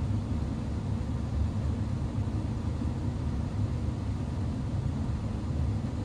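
Gas furnace's circulating blower fan running with a steady low rumble of moving air. It is running because the heat exchanger is still hot after the burner lit and the system was shut down.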